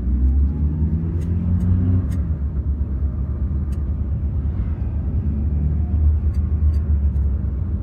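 Wind buffeting a phone's microphone: a loud, steady low rumble, with a few faint clicks.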